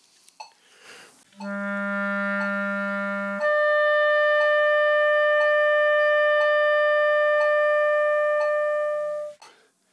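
B-flat clarinet plays a low written A for about two seconds, then leaps up a twelfth to its overtone, the E, by voicing alone without the register key, and holds it for about six seconds until it stops. Low-note clarinet overtones like this one sit out of tune, which is normal for the instrument.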